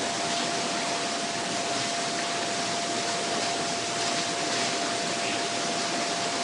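Steady hiss with a steady whine under it, and a few faint clicks as a thin nail punches small holes around the rim of an aluminium can.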